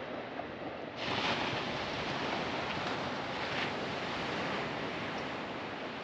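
Ocean surf: a steady wash of waves, with a wave breaking about a second in and slowly washing out.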